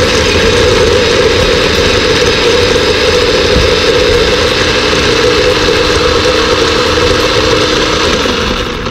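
Electric mini chopper running steadily with its blade whirring through garlic cloves to mince them, winding down near the end.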